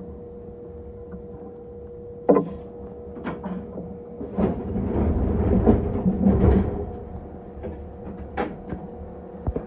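Kintetsu electric train standing at a station, heard from inside: a steady hum with one constant tone, broken by scattered clunks and knocks, the loudest cluster coming in the middle.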